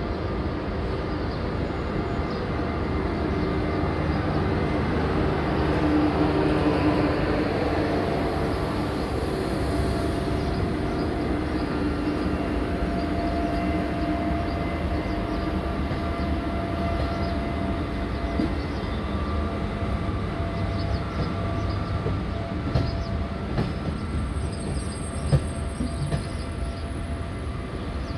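An SNCF TGV InOui high-speed trainset rolls slowly past along a station platform: a steady rumble with a hum of held tones, which swells as the power car goes by and then carries on as the coaches run past. A couple of sharp clicks come near the end.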